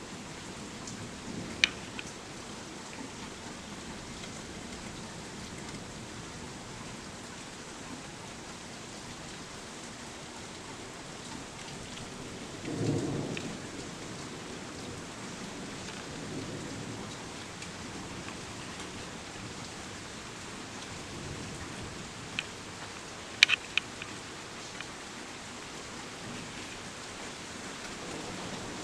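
Steady rain falling during a thunderstorm, with one short low rumble of thunder near the middle. A few sharp clicks stand out, once near the start and a quick cluster about three quarters of the way through.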